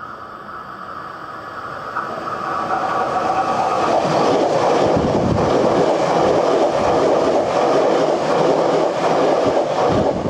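Hankyu electric train approaching and passing at speed close to the microphone: a rumble that grows louder, then loud wheel-on-rail noise with a rhythmic clatter as the cars go by, falling away as the last car passes near the end.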